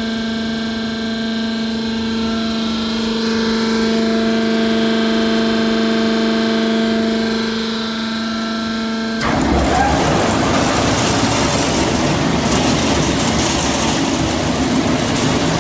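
GT6-14 wire straightening and cutting machine running: a steady motor hum for the first nine seconds or so, then a sudden change to a louder, noisy rattling rumble as the straightening drum spins.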